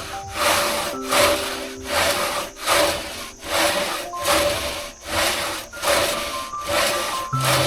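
Two-man hand saw ripping lengthwise through a log, the blade rasping through the wood in even back-and-forth strokes about twice a second, over background music.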